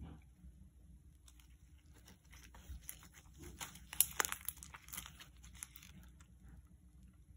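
Clear glitter slime being squeezed and kneaded in gloved hands, giving a run of sharp clicks and pops that is densest and loudest about four seconds in.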